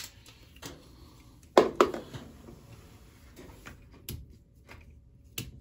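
A Leatherman multitool being opened and handled at a plastic laundry box: a few sharp clicks and knocks, the loudest pair close together about a second and a half in.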